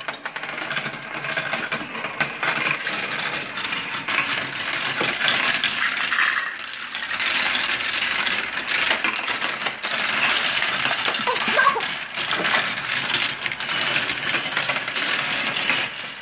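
Glass marbles rolling and clattering through a plastic marble run: a steady stream of quick clicks and clinks as the marbles hit the plastic tracks, funnels and one another.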